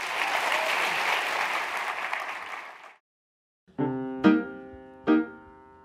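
Audience applauding, cut off abruptly about three seconds in. After a brief silence, piano chords are struck one after another and ring out.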